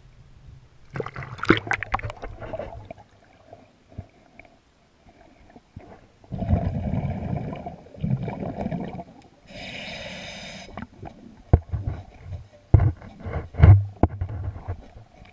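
Underwater scuba breathing through a diver's regulator: a couple of seconds of rumbling exhaled bubbles, then a short inhaled hiss. Sharp knocks and scrapes come before and after the breath.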